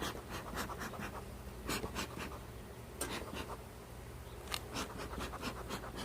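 Beehive parts scraping and clicking as the queen excluder and hive box are worked back into place, a run of irregular short scrapes and knocks.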